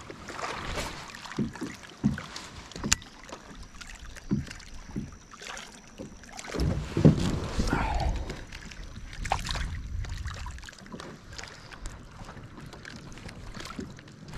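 Water sloshing and scattered knocks and clicks around a fishing kayak, with a stretch of low rumble through the middle.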